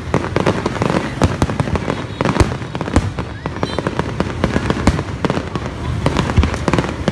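Aerial fireworks shells bursting overhead in a rapid, irregular series of bangs and crackles, a few bangs standing out louder.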